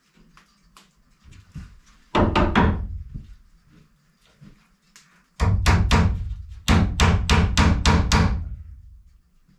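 Hammer driving nails into the shack's wooden framing. A quick run of four blows comes about two seconds in, then two longer runs of blows, about a dozen in all, from about five and a half seconds.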